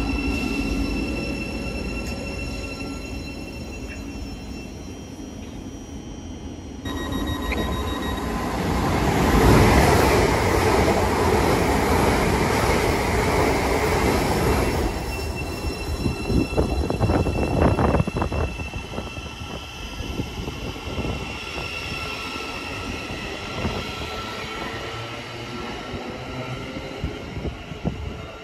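Passenger train passing at speed along a main line, building to its loudest about ten seconds in, with a cluster of sharp clicks from the wheels a few seconds later, then fading away. Steady high tones sound through the whole pass.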